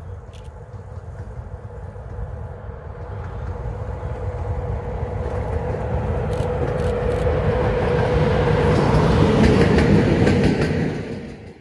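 A single EA 400-series electric locomotive running light, approaching and passing close by. Its wheels rumble on the rails with a steady hum over them, and there are a few sharp clicks. It grows steadily louder and cuts off suddenly near the end.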